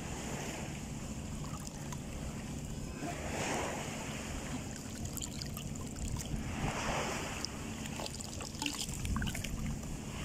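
Small sea waves lapping and washing in the shallows, swelling about every three seconds, over a steady low rumble of wind on the microphone.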